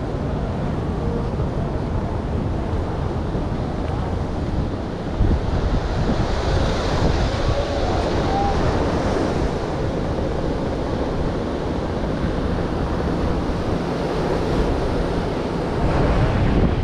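Ocean surf breaking and washing up a sandy beach, with wind buffeting the microphone. The hiss of the surf swells louder a few seconds in.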